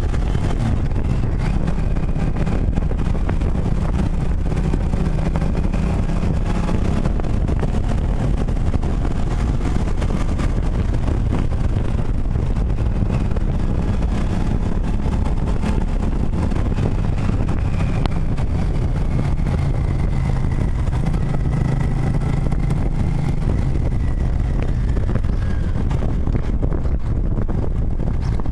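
Motorcycle engine running steadily while under way, its pitch shifting up and down with speed, over a constant low rush of wind noise.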